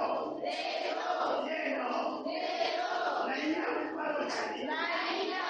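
Many voices of a congregation praying aloud at once, overlapping in a loud, continuous chant-like din.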